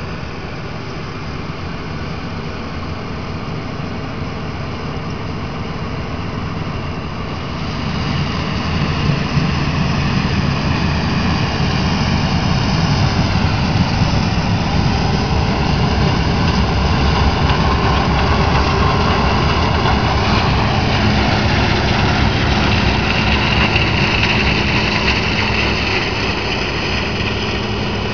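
Heavy diesel harvest machinery running steadily under load, with a higher whine that wavers in pitch. It grows louder through the first quarter, steps up about eight seconds in, then stays loud as the machine comes close.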